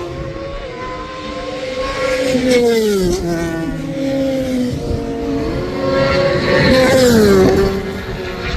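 Racing motorcycle engines running at high revs on a circuit, the pitch dropping as bikes go past about three seconds in and again, loudest, around seven seconds.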